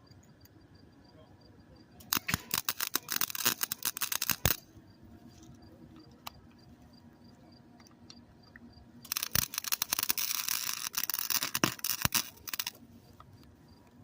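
Wire-feed welder arc crackling and spitting in two bursts, one of about two and a half seconds and a longer one of about three and a half seconds, as welds are laid on a bicycle part.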